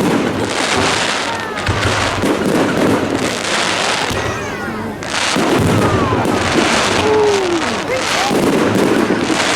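Fireworks display: aerial shells bursting and crackling in quick succession, a new burst every second or so.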